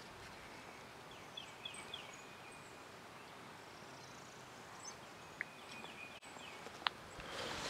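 Faint outdoor background with small birds calling: a quick run of three short, high, downward-sliding chirps about a second and a half in, and another like it around six seconds in. A single sharp click comes near the end.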